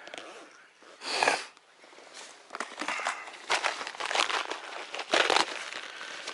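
Rustling and clicking of fishing tackle being handled: plastic lure boxes and a tackle bag moved about, with a louder scuff about a second in.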